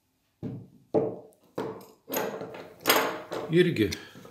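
Distributor parts being picked up and set down on a wooden table: a series of short knocks and clatters of metal and plastic on wood, about one every half second, followed by a brief spoken word near the end.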